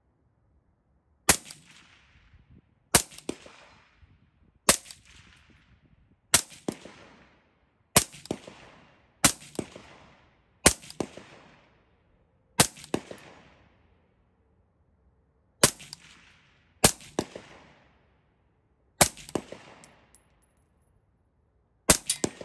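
Suppressed AR-15-type rifle fired in slow, single aimed shots, about a dozen spaced a second or two apart, with two in quick succession near the end. Each shot is followed a fraction of a second later by the faint ring of a steel target about 100 yards away being hit.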